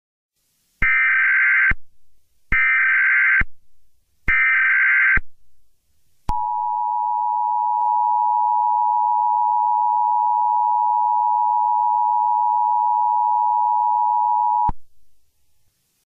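Emergency Alert System tones: three short bursts of the digital SAME data header, each under a second, followed by the two-tone EAS attention signal (853 and 960 Hz together), which holds steady for about eight seconds and then cuts off.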